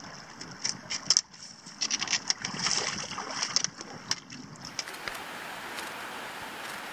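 Hiker wading across a shallow rocky river: irregular splashing steps through the water, with sharp clicks of trekking poles striking the stones. About four and a half seconds in, this gives way to a steady, even hiss.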